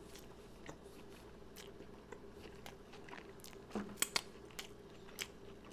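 A person biting into and chewing a chili dog, close to the microphone. The chewing makes soft, scattered wet clicks, with a few louder ones about four seconds in.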